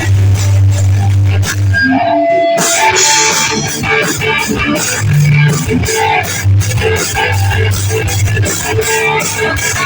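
Live rock band playing an instrumental passage on electric guitar, bass and drums with a steady cymbal beat. The drums and high end drop out briefly about two seconds in, leaving one held note, before the full band comes back in.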